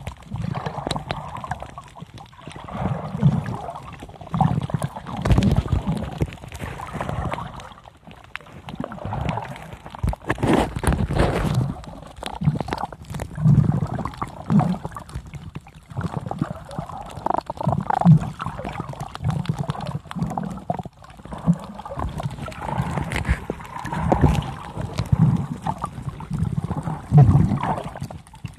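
A snorkeler breathing heavily through a snorkel while swimming over a reef, heard muffled through water with gurgling. The breaths come as uneven surges, one every one to three seconds.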